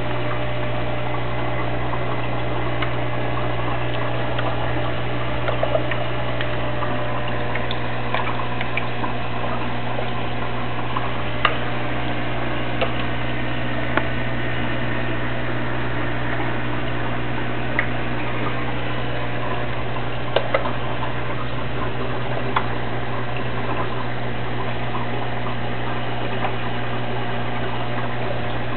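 Aquarium pump and filter running: a steady low hum under a constant wash of moving, bubbling water, with scattered faint clicks.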